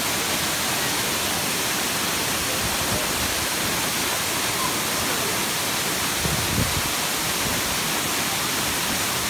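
Waterfall plunging onto rock and into a pool: a steady, dense rush of falling water that does not let up.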